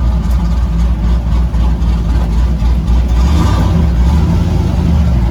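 Twin-turbo destroked 6-litre LS V8 idling steadily and smoothly, with no misfire after new spark plugs and wires.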